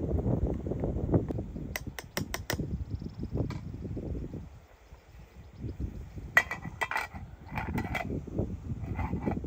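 Rustling, scraping handling noise broken by runs of sharp clicks: four quick clicks about two seconds in, and another cluster of clicks with a short ringing edge from about six to eight seconds in.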